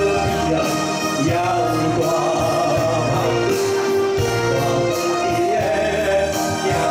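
A man singing a Taiwanese Hokkien ballad through a microphone over amplified backing music, holding long notes that slide between pitches.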